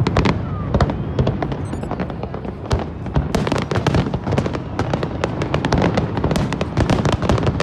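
Fireworks display going off: a rapid, overlapping string of bangs and crackling bursts over a low rumble, growing denser about three seconds in.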